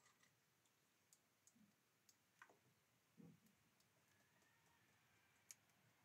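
Near silence broken by a few faint, scattered clicks and taps: a great tit's feet and beak on a plastic feeding tray and food block.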